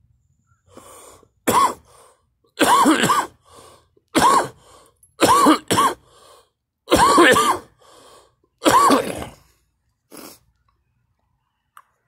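A person coughing and gagging in a run of about six loud, harsh fits, some with two hacks each, with short quieter breaths in between. A weaker final cough comes about ten seconds in.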